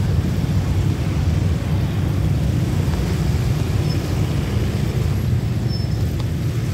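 Steady low rumble of the Alsthom diesel-electric locomotive working hard as it pulls its passenger train away along the line.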